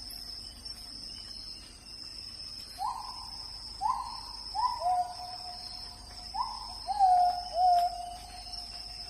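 A steady, high-pitched insect chorus of crickets or cicadas, with a run of short, clear hooting animal calls starting about three seconds in. Some of the calls overlap at two different pitches.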